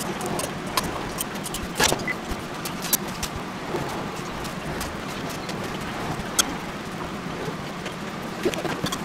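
A few light clicks and taps as plastic bento boxes and a spoon are handled, over a steady background rush of noise.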